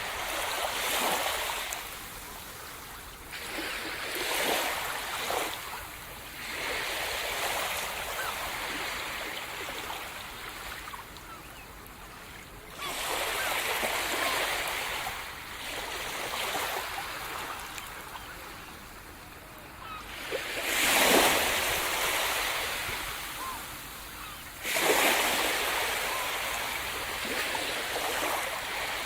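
Sea surf breaking on the shore: waves rush in and die away every few seconds, the loudest two near the end.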